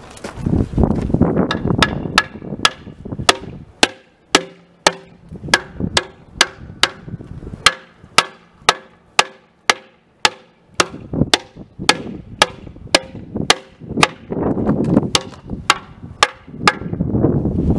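Steady hammer blows on the rusted cylinder cover of a 1937 Porter 0-4-0T steam locomotive, about two strikes a second, each with a short metallic ring.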